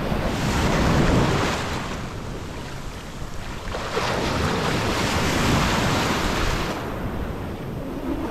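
Ocean surf breaking and washing up the beach, swelling about a second in and again from about four to nearly seven seconds, with wind buffeting the microphone.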